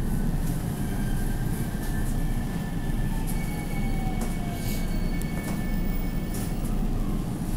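Interior sound of a JR Central 313 series 2600 electric multiple unit: a steady low rumble with a faint falling whine about three seconds in and a few light clicks.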